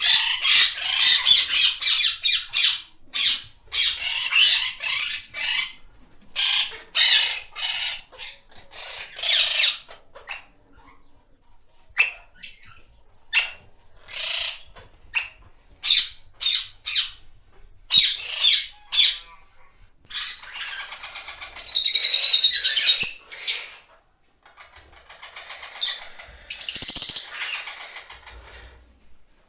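Parrot squawking: fast runs of harsh, high screeches for the first ten seconds, then short separate chirps, then two longer rasping calls a few seconds apart.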